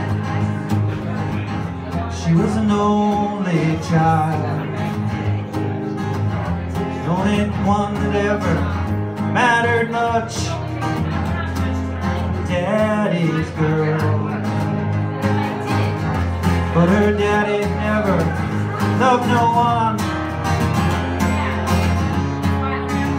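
Acoustic guitar playing a song live, with a voice singing phrases over it.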